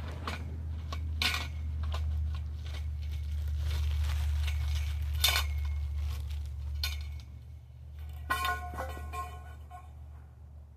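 Chicken pen parts clinking and knocking together as they are handled and fitted: a series of sharp clicks and knocks, with a cluster of ringing metallic clinks a little past eight seconds in. A low steady rumble runs underneath and drops away about seven seconds in.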